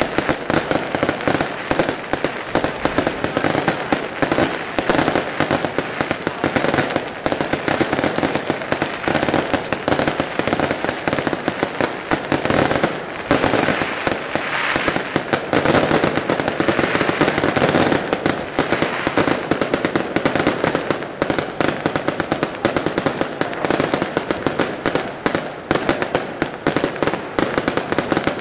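Aerial fireworks display: a continuous barrage of rapid, overlapping bangs and crackling from bursting shells and rising comets, with no pause.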